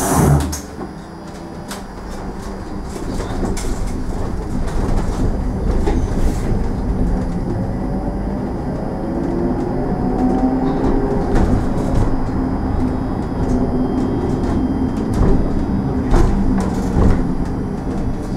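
Interior of a SOR EBN 9.5 electric bus under way: steady road rumble that builds as the bus gathers speed, with a faint electric motor whine rising in pitch partway through. Scattered rattles and knocks come from the cabin fittings, and a few louder ones cluster near the end. At the very start an air hiss cuts off with a thump.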